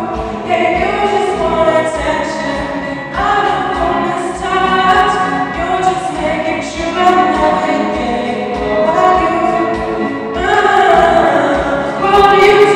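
A young man singing a song into a microphone in long held notes that slide between pitches, over backing music.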